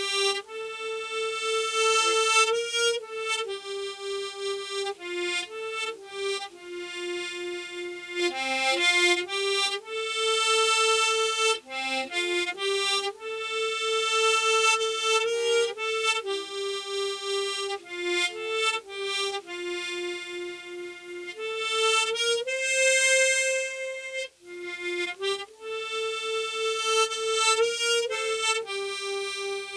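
Solo harmonica playing a slow melody with no accompaniment, one held note at a time, with a short breath pause late on.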